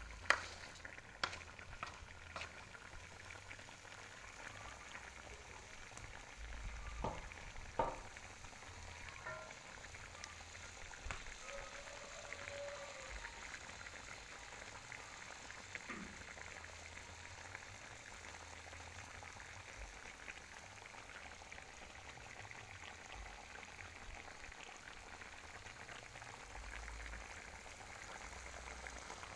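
Faint, steady sizzling of chicken gizzards, livers, intestines and feet frying in a wok, with a few sharp clicks of the spatula against the pan in the first several seconds.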